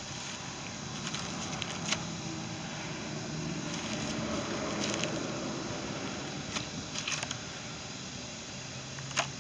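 Plastic blister packs of replacement parts being handled, giving a few scattered crinkles and clicks, the sharpest near the end, over a steady background hum.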